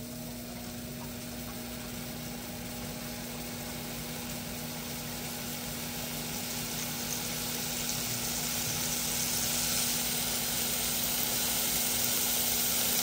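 Tri-tip roast searing in a hot pan: fat and juices sizzling steadily, growing louder through the second half, over a steady low hum.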